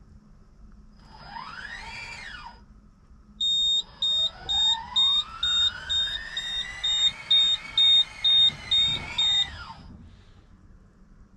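A self-driving farm machine's warning beeper sounding about twice a second over a motor whine that rises in pitch, holds, and winds down near the end; a shorter whine rises and falls a couple of seconds before the beeping starts.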